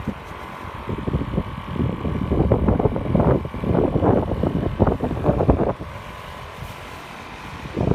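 Wind buffeting the microphone in irregular gusts, heavier for most of the first six seconds and lighter after that.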